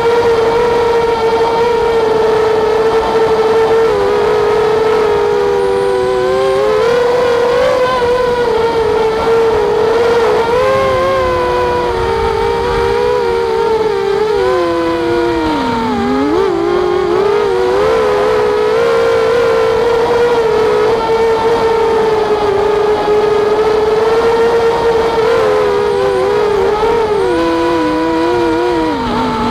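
Walkera Rodeo quadcopter's electric motors and propellers whining loudly, heard close from the drone itself. The steady pitch splits into several wavering tones as the motors change speed to steer, and drops sharply twice, about halfway through and near the end, as the throttle is eased off.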